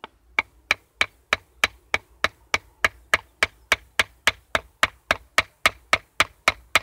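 Bushcraft knife being batoned into a piece of wood in an inverted-batoning test: a steady run of sharp wooden knocks, about three a second.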